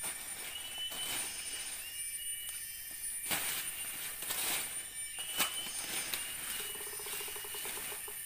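Dry leaf litter and brush being raked and swept aside in several rustling strokes, over a steady high insect whine and repeated short high chirps from the forest. A pulsed buzzing trill joins near the end.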